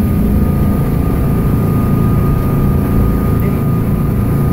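Fishing boat's engine running steadily at cruising speed, heard from inside the cabin as a loud, even low drone with a thin steady whine over it.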